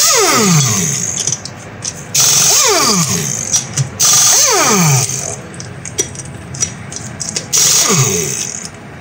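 Pneumatic impact wrench undoing the lug nuts on a car's steel wheel: four bursts of hammering with air hiss, each ending in a falling whine as the tool spins down.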